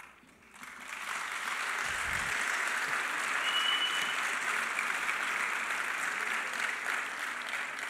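A large audience applauding; the clapping swells in the first second and then holds steady. A brief high steady tone sounds about three and a half seconds in.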